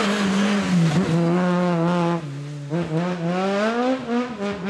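Suzuki Swift rally car's engine running at high revs, then dropping off for about half a second two seconds in as the driver lifts, before climbing again under acceleration.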